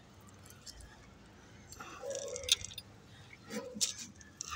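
Light rustling and scraping as a duck vine and its root ball are handled and settled into a terracotta pot: a few short, scattered rustles and clicks, with one sharp click about two and a half seconds in.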